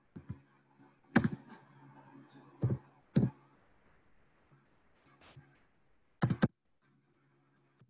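Separate keystrokes and clicks on a computer keyboard and mouse, a handful of sharp taps spread out, with a quick cluster of three about six seconds in.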